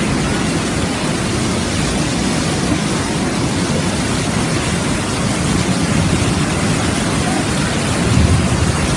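Fast floodwater rushing through a street in a steady loud roar of churning water, swelling slightly about eight seconds in.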